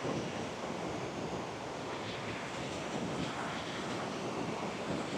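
Rain-swollen forest creek rushing over rocks and a small cascade: a steady, even rush of water.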